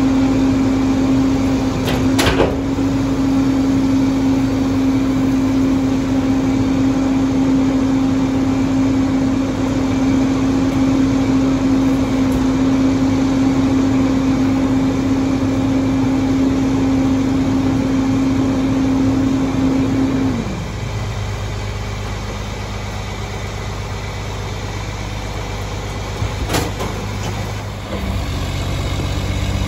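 Mack MR garbage truck's diesel engine running at raised revs while the Heil Formula 4000 rear packer goes through its hydraulic packing cycle; about twenty seconds in the revs fall back to idle as the cycle finishes. A sharp knock about two seconds in and another near the end.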